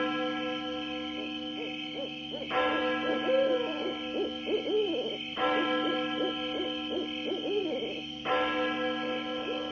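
Spooky Halloween sound-effects soundtrack: an eerie held drone of several steady tones that shifts about every three seconds, under repeated short owl-like hoots that rise and fall in pitch.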